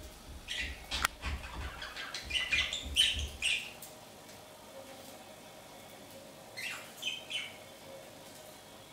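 Pet budgerigars chirping and chattering in quick short bursts. The chirps come thickly in the first few seconds, with one sharp click among them, then pause and come again as a shorter burst near the end. A low rumble sits under the first few seconds.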